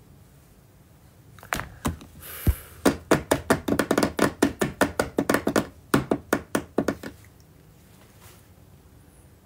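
A quick, uneven run of taps, about five a second. It starts about a second and a half in and stops after about seven seconds, with a short hiss near its start.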